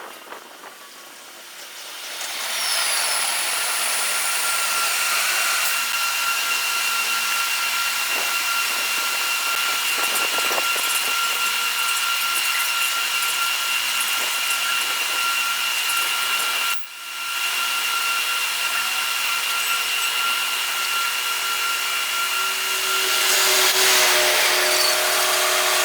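Running noise of a diesel-hauled passenger train: a steady, loud rush of wheels on rail with a couple of thin, held whining tones, building up about two seconds in and cutting out briefly partway through.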